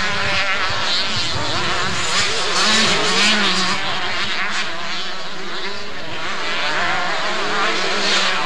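Several 125 cc two-stroke motocross bikes revving hard on the track, their engines overlapping and rising and falling in pitch as the riders work the throttle.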